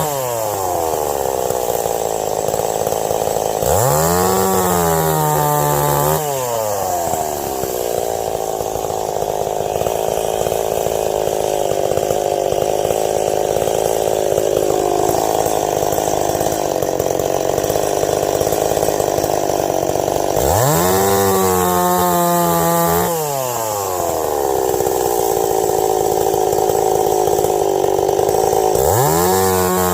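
Ported Stihl 026 chainsaw cutting into ash. It revs up and falls back twice between cuts, and runs at a steadier pitch under load through two long cuts in between.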